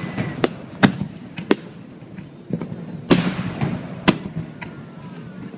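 Aerial firework shells bursting in a string of sharp bangs at uneven intervals, about seven in all, with a burst of crackling about three seconds in.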